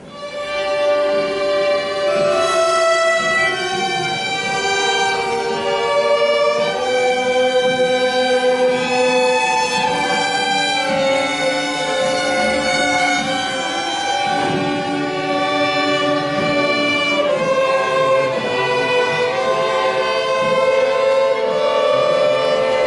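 A small string orchestra led by violins playing a classical piece in held, sustained notes. The music begins right at the start and quickly rises to full level.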